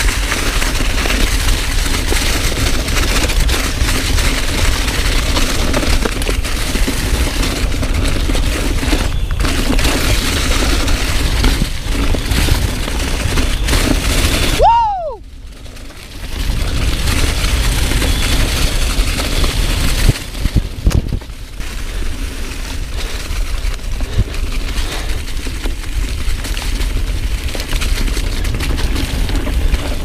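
Mountain bike rolling fast down a leaf-covered dirt trail: wind buffets the handlebar-mounted camera's microphone, and tyres and frame rattle and jolt over the ground. About halfway through the noise briefly drops away and a short squeal falls in pitch.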